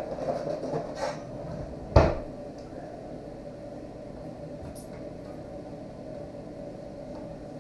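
Metal utensils clattering in a kitchen drawer, then the drawer shut with a single loud bang about two seconds in. A steady hum runs underneath.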